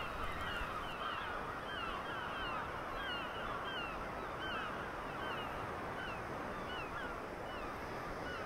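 A large flock of gulls calling all at once: many short, repeated cries overlapping in a constant chorus.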